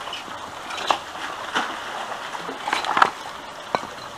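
A metal shopping trolley is hauled out of a canal lock on a rope, water sloshing and splashing off it. It clanks several times against the lock edge and brick paving as it lands, loudest about three seconds in. A steady rush of running water continues behind.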